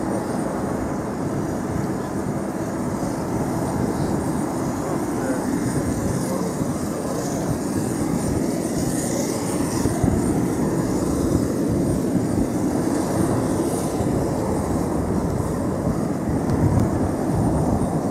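Steady rumble of a Boeing 737-500 being pushed back by a tow tractor, with a thin high whine running over it.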